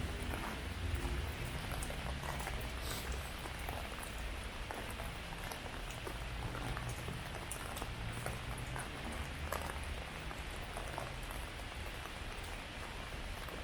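Heavy rain falling: a steady hiss sprinkled with the small ticks of individual drops, over a low rumble.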